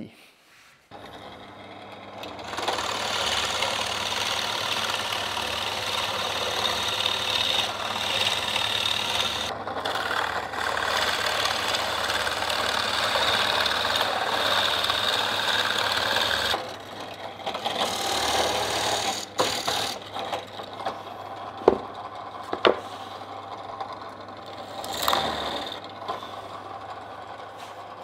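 Bench drill press running, its 32 mm Forstner bit boring through plywood, the cutting noise loud for most of the first half, easing off later, with a couple of sharp knocks near the end.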